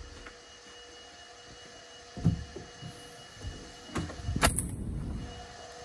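A few knocks, then about four seconds in a loud clunk as a Volkswagen Caravelle's tailgate shuts. A brief whir follows as its power-closing latch pulls the tailgate fully shut.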